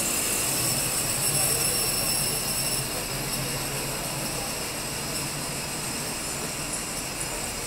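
Steady indoor mall background: an even hum and hiss with faint crowd chatter, a little louder in the first three seconds.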